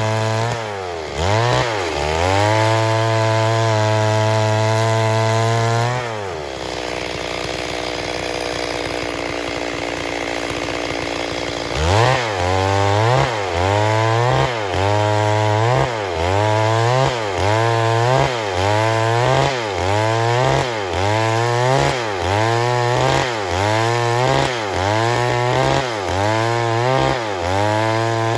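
Stihl MS 382 two-stroke chainsaw running at high revs, dropping to idle about six seconds in, then revved back up about halfway through and surging up and down about once a second.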